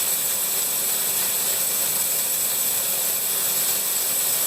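Homemade bandsaw sawmill running steadily with no wood in it: a continuous even hiss with a high whine over it.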